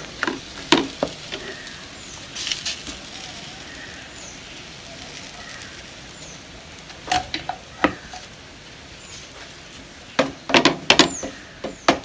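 Raw chapati dough cooking on a hot tawa with a steady faint sizzle. Scattered sharp knocks and clicks from handling break in, bunched together near the end.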